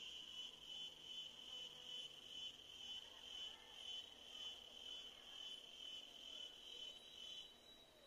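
A faint, high-pitched insect trill pulsing about twice a second, which stops shortly before the end.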